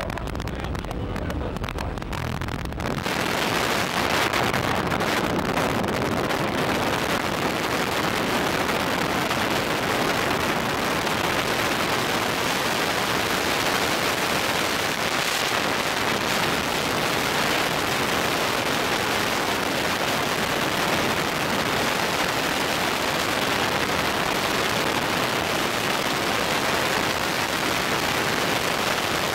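Jump plane's engine running at the open door, then, about three seconds in as the tandem pair exits, freefall wind rushing over the camera's microphone: a loud, steady hiss that holds to the end.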